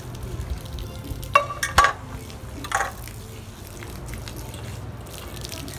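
Water from a hose splashing and hissing, with three sharp clanks of a metal bowl, one ringing briefly, between about one and a half and three seconds in.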